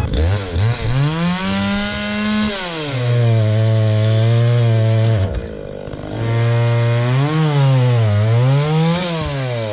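Two-stroke chainsaw revving up to a high pitch, then dropping to a lower, steady pitch as it bites into a log being bucked into rounds. It eases off briefly about halfway through, then cuts again with its pitch rising and falling.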